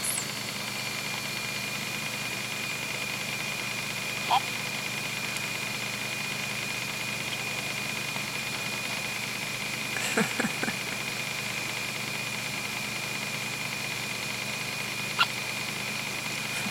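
A few short, sudden hiccups several seconds apart: one about four seconds in, a double one about ten seconds in and a faint click-like one near the end, over a steady high background whine.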